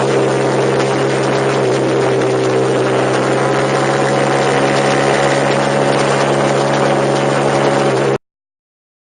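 A vehicle's engine running at a steady, unchanging pitch, which cuts off abruptly a little after eight seconds in.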